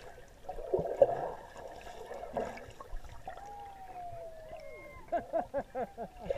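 Pool water heard from underwater: muffled sloshing and bubbling as swimmers kick past, with a slowly falling tone about halfway through and a quick run of gurgling bubble chirps near the end.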